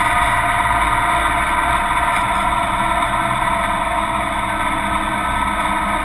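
Chevrolet S-10 drag-racing truck's engine running steadily at low speed, heard from inside the cab.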